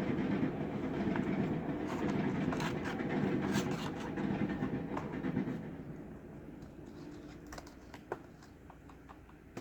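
Flat plastic pry tool scraping along the seam of a laptop's plastic palm rest as it is worked loose, with small clicks. The scraping fades about halfway through, leaving a few light clicks.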